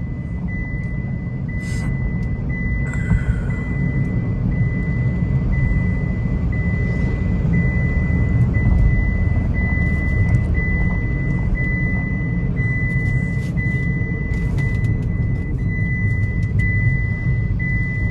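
Hyundai Xcent petrol car on the move: a steady low rumble of engine and road noise, with a high electronic beep repeating about once a second.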